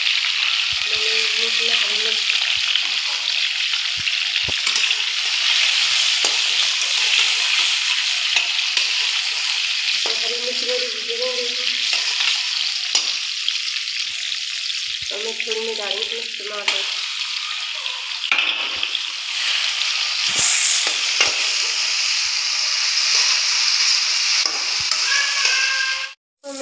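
Cumin and spice masala frying in hot oil in a kadhai: a steady sizzle, which cuts out briefly near the end.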